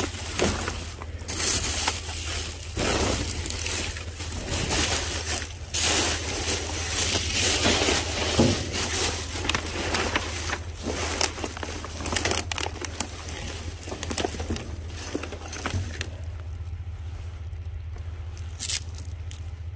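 Plastic trash bags rustling and crinkling in a dumpster as gloved hands dig through them, with scrapes and knocks of objects being shifted. It is busiest until about three quarters of the way through, then quieter, with a steady low hum underneath.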